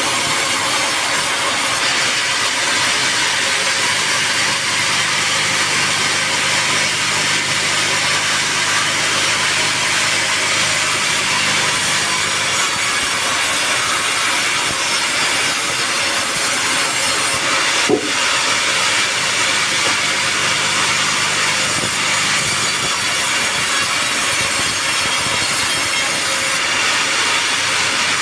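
A sawmill saw running steadily as it cuts lengthwise through a teak log, with a single sharp knock about two-thirds of the way through.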